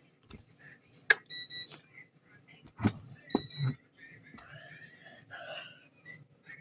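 Samsung washing machine control panel being operated: sharp button clicks, two of them followed by a short, high electronic beep.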